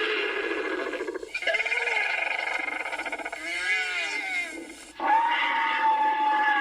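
Wandering albatross calls: a series of about four drawn-out, harsh calls with a few short breaks between them. One call wavers up and down in pitch near the middle, and a louder, steadier call starts abruptly about five seconds in.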